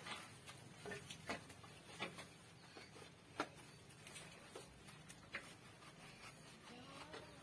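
Faint, irregular taps and drips of water around a motorcycle being washed by hand with a garden hose, about a dozen sharp ticks spread unevenly over a low background hum.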